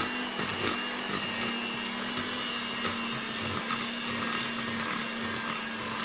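Electric hand mixer running steadily on its lowest speed, its beaters working cake batter in a plastic bowl.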